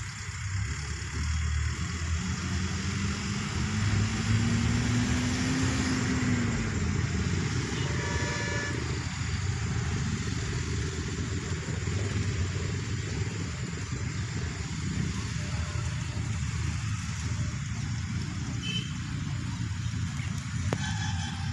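Engine of a passing motor vehicle, its pitch rising slowly for a few seconds and then falling away, over a steady low rumble. A brief pitched sound comes about eight seconds in.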